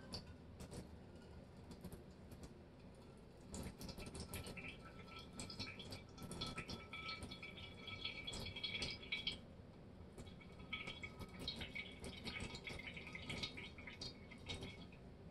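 Liquid draining from a partly opened can of tuna, dripping and trickling faintly into a bowl in uneven spells, with small scattered clicks.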